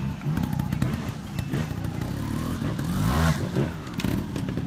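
Two-stroke engine of a TRS 300 trials motorcycle revving up and down in short throttle blips as it climbs through a rocky section, with the loudest rev about three seconds in.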